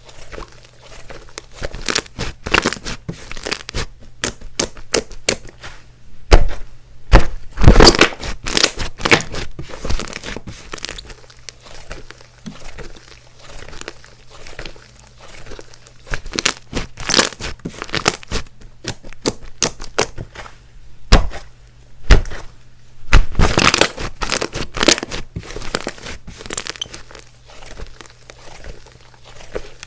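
Hands squishing, stretching and pulling apart thick clay-mixed slime, with sticky crackling and tearing sounds. Louder clusters of squishing come about six to ten seconds in and again around twenty-three seconds.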